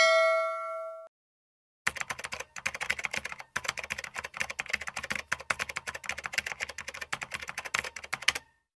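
Keyboard typing: rapid clicking keystrokes for about six seconds, with one brief pause along the way. Before it, a ringing chime fades out in the first second.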